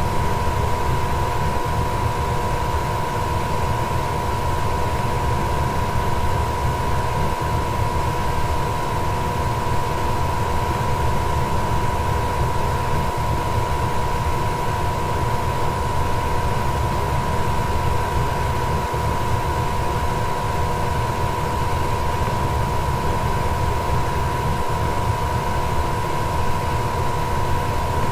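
Goodman furnace running steadily: a constant rush of air and low rumble with a steady whine.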